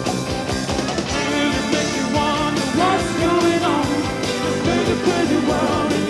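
Rock band playing live, with a man singing over drums, guitar and keyboards.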